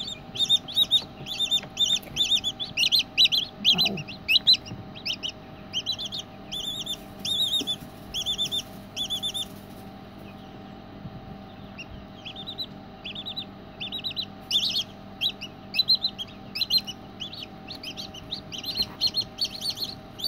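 Silkie chick peeping from inside its pipped egg as it works to hatch: rapid runs of short, high, loud cheeps, several a second. About halfway it falls quiet for two seconds, then starts again softly and builds back up. A faint steady hum runs beneath.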